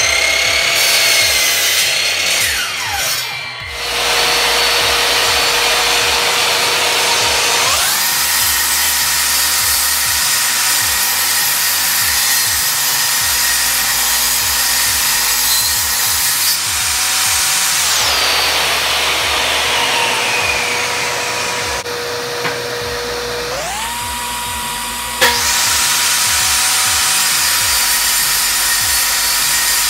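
A sliding miter saw finishes a cut and winds down in the first few seconds. Then a DeWalt jobsite table saw runs with a steady high whine, ripping a pre-finished plywood panel; it spins down about 18 seconds in and starts up again about 24 seconds in.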